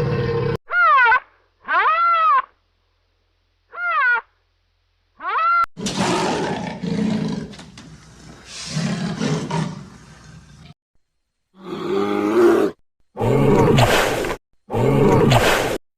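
A string of different wild animal calls: four short, clear calls that each rise and fall in pitch, then a long rough call, then three loud roars about a second each.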